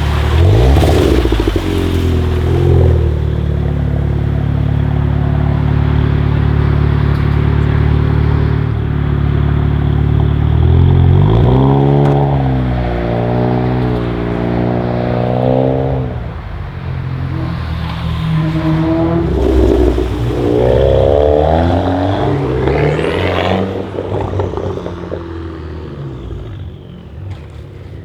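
Seat Leon Cupra ST 5F's turbocharged 2.0-litre four-cylinder through a custom exhaust, holding a steady note, then revved up and down twice with the pitch rising and falling, and quieter near the end.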